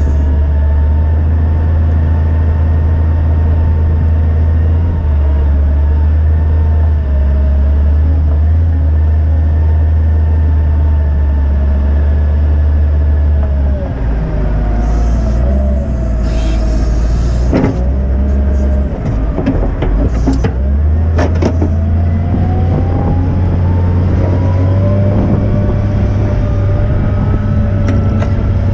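Volvo L60E wheel loader's six-cylinder diesel engine running under load while the loader pushes snow, a deep steady drone with a whine over it. About halfway through the engine note drops and a few knocks and clatters sound, then the whine rises steadily in pitch over the last several seconds.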